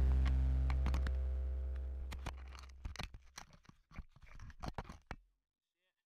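Background music fading out over the first few seconds, overlapped and followed by a scatter of clicks, knocks and scrapes of a GoPro camera being handled and set down on rock, then cutting to dead silence near the end.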